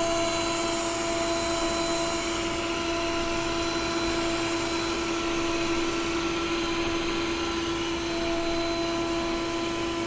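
yeedi vac max robot vacuum running, a steady whir with a constant whining tone.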